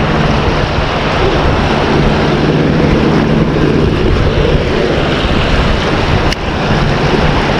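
Steady rushing of river water below a dam, with one brief click about six seconds in.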